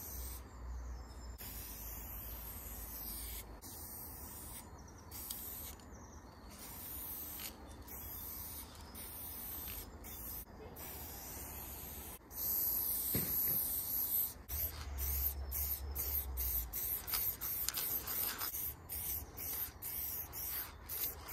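Aerosol spray paint can hissing in repeated short strokes as paint lines are sprayed on a wall. It gets louder about twelve seconds in, with quicker strokes near the end.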